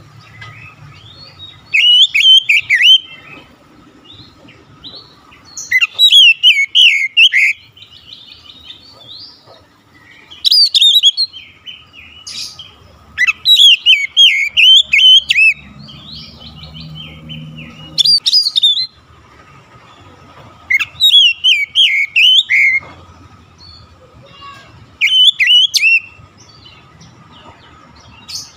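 Oriental magpie-robin singing: seven loud bursts of quick, varied whistled phrases, one every three to four seconds, with a faint steady high hum underneath.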